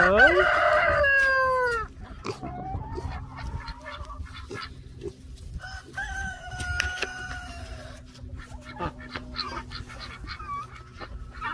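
A rooster crowing loudly for the first couple of seconds, its call falling away at the end. A second, softer long call follows about six seconds in, among hen clucks and scattered small clicks and rustles.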